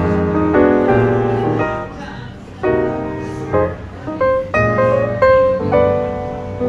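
Instrumental background music led by piano, playing a melody over chords.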